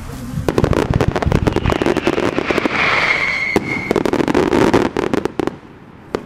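Finale barrage of aerial fireworks: a rapid, dense run of bangs and crackling bursts, with a brief high whistle in the middle. It dies away about five and a half seconds in, and one last bang follows near the end.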